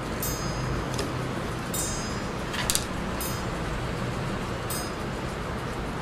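High, bell-like chimes ring out briefly about once a second at uneven intervals, with a sharper, louder clink about two and a half seconds in, over a steady low hum.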